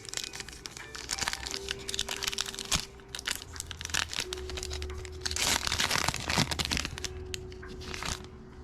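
Wrapper of a Topps Chrome Cosmic trading card pack being torn open and crinkled by hand, a dense crackling that is heaviest about five and a half seconds in.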